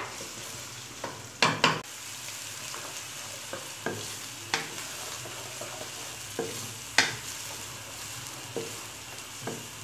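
Sliced onions sizzling in hot oil in a karahi, stirred with a wooden spatula that knocks sharply against the pan every second or two.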